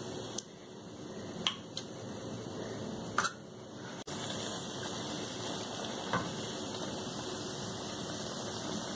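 Oil sizzling steadily in a steel frying pan as stuffed bread pakoras fry, with a few sharp clicks of a metal spoon against the pan.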